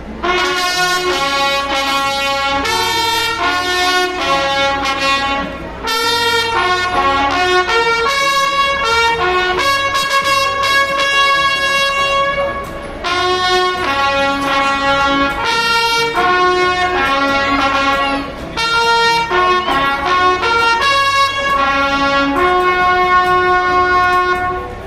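Trumpets playing a melody of held notes, in several phrases with short breaks between them.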